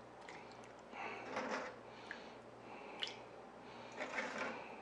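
A metal ladle scooping hot broth out of a hot pot and pouring it into a bowl: soft splashes and swishes of liquid, with a light clink of the ladle against the pot about three seconds in.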